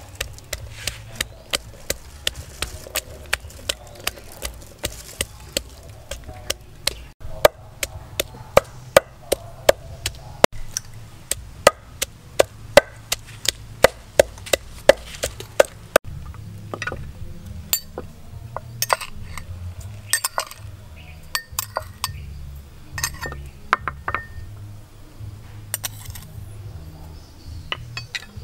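Wooden pestle pounding garlic and red chilies in a clay mortar: sharp, regular knocks about two a second, becoming more spaced and irregular about halfway through.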